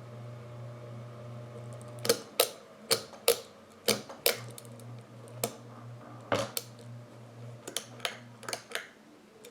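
Alaron ceiling fan motor humming steadily on mains power, the sign of a completely failed capacitor. From about two seconds in, a run of a dozen or so sharp clicks and knocks sounds over the hum, which fades out for a moment and comes back.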